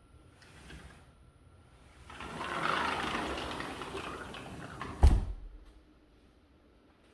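A door rolling along its track for about three seconds, ending in a sharp thump about five seconds in as it comes to a stop.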